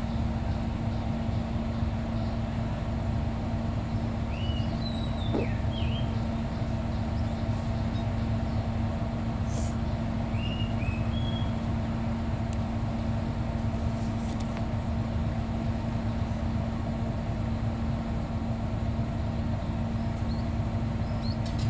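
Steady low diesel drone of a stopped passenger train idling, with a constant hum over it. A few short high chirps sound around the fifth and tenth seconds.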